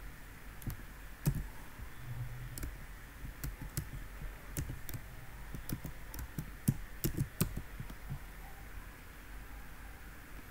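Typing on a computer keyboard: irregular key clicks, thinning out near the end.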